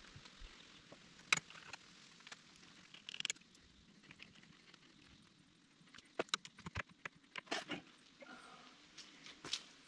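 Light, scattered clicks, knocks and rustles of handling: hands working a framed tractor door glass with suction-cup handles on its wooden packing crate and plastic wrap. A quick run of sharper clicks and knocks comes about six to eight seconds in.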